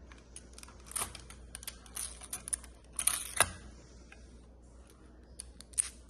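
Irregular sharp clicks and taps of small magnetic building cubes being handled and snapped together, loudest about a third of the way in and again near the end.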